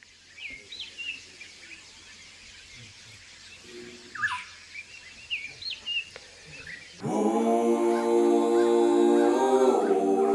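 Birds calling with short, swooping whistled notes over a faint background hiss. About seven seconds in, louder sung vocal music with held chords comes in and covers them.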